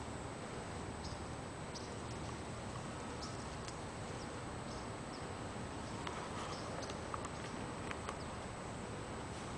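Quiet outdoor ambience: a steady hiss under a faint, steady high whine, with faint, scattered, short high chirps.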